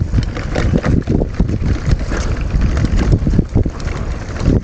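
Wind buffeting an action camera's microphone during a mountain bike ride, with frequent short knocks and rattles from the bike jolting over rough ground.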